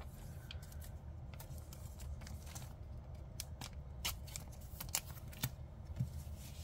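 Trading cards being handled and set down on a playmat: faint, scattered clicks and slides of card stock.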